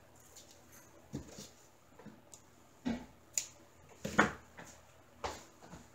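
Handling noises on a tabletop: a handful of short, irregular taps and rustles as craft materials are moved about, the loudest a little over four seconds in.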